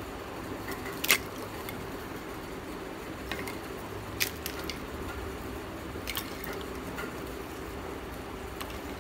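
Brittle slabs of roasted multani mitti (fuller's earth clay) being handled and split into layers by gloved hands: a few short, sharp cracks and clicks as the clay breaks and pieces knock together, the loudest about a second in. A steady low hum runs underneath.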